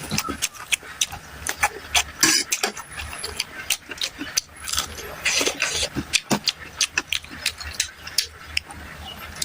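Close-miked eating: rapid wet chewing clicks and mouth smacks, with a longer slurp about five and a half seconds in.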